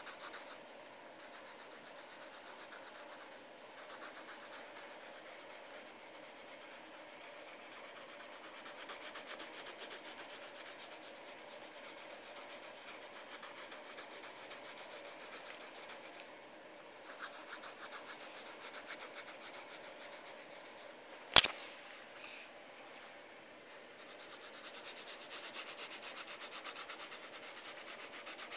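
Graphite pencil shading on paper: quick back-and-forth strokes scratching in runs with brief pauses. One sharp click comes about three-quarters of the way through.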